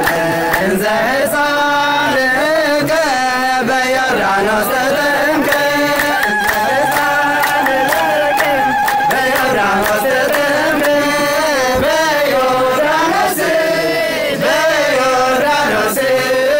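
A voice singing a slow, ornamented, chant-like melody with long held and bending notes, over light percussive ticks.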